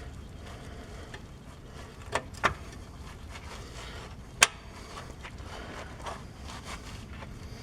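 A few short, sharp clicks as a replacement shift lever arm is forced onto the transmission's shift shaft: two close together about two seconds in, and a sharper one a little past the middle, over a faint steady background noise.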